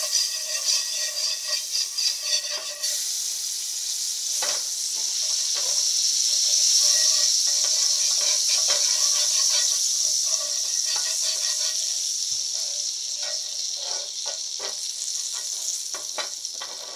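Butter sizzling in a hot frying pan, swelling in the middle and slowly dying down, with a few light knocks as it is pushed around the pan.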